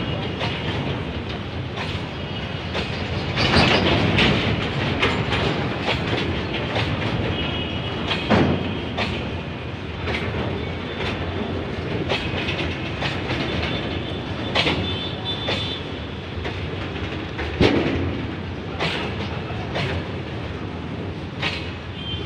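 BOXN open freight wagons rolling past close by: a continuous rumble with wheels clattering over the rail joints, and faint thin wheel squeals now and then.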